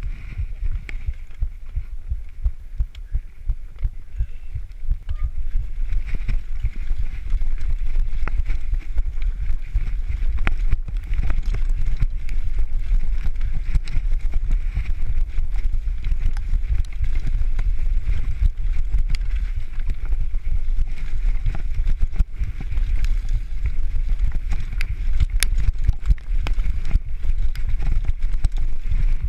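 Mountain bike descending a rough dirt trail: a steady low rumble of wind on the microphone and tyres over the ground, with frequent clicks and rattles from the bike. It gets louder about six seconds in as the speed picks up.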